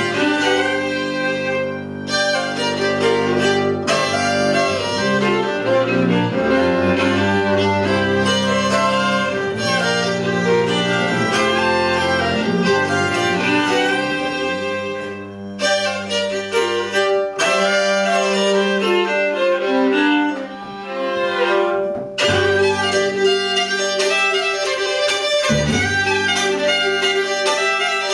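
Acoustic string band playing an instrumental fiddle tune live, the fiddle leading over lower string accompaniment, with short breaks in the phrasing about halfway and again near the end.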